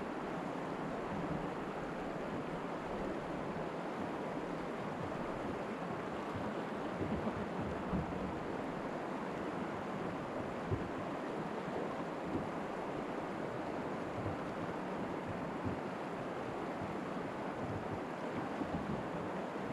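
Steady rushing of river water through a riffle, with a few brief light knocks.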